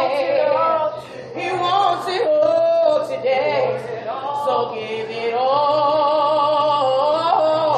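Two women singing a gospel song a cappella, their voices moving between notes and then holding one long note for a couple of seconds near the end.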